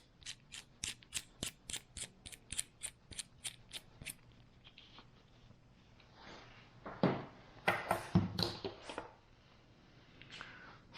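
Ratchet wrench clicking steadily, about four clicks a second, as a nut is run back onto a fitting. The clicking stops after about four seconds. A few seconds later come rattles and knocks of parts being handled.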